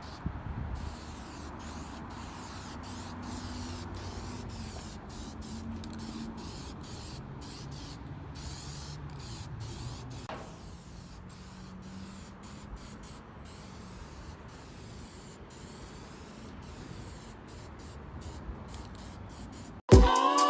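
Aerosol spray paint can hissing as black paint is sprayed onto a steel bash bar, with many short breaks in the spray; music cuts in near the end.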